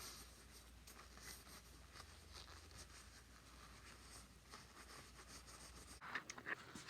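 Faint, repeated rubbing strokes of a soft cloth buffing metal polish on an old metal tractor foot pedal, over a low hum that cuts off about six seconds in, followed by a few small handling clicks.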